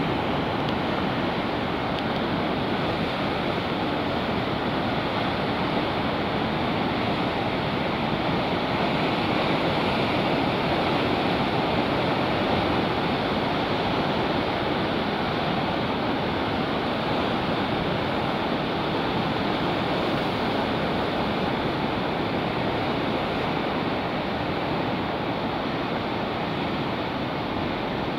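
Ocean surf breaking and washing among rocks on a rocky shore, a steady rushing with no single wave standing out. It sounds dull and muffled at the top end, through tape put over the microphone against the wind.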